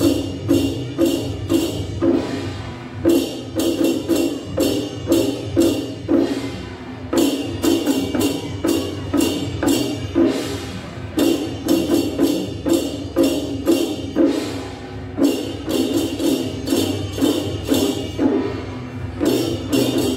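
Folk parade percussion of a liangsan drum troupe: drums and metal percussion beating a quick, steady rhythm. It comes in phrases of about four seconds, and the bright metallic strikes drop out for a moment between phrases.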